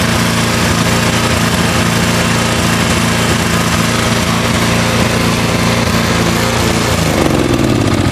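Toro TimeMaster walk-behind mower's small gas engine running steadily at full speed, then starting to wind down, falling in pitch, near the end as it is shut off.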